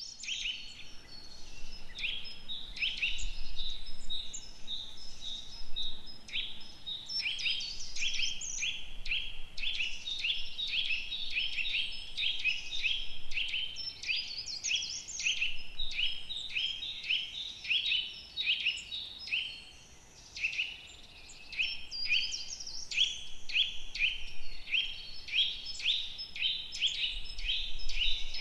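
Woodland birdsong chorus: several birds singing and calling over one another, with a steady run of short, quick notes about two a second and higher calls above them. The singing thins out briefly about two-thirds of the way through, then picks up again.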